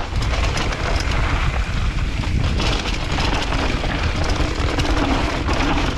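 Mountain bike ridden fast down a dry, dusty dirt trail: a steady rush of wind on the bike-mounted camera's microphone and tyre noise on the dirt, with the bike clattering over bumps.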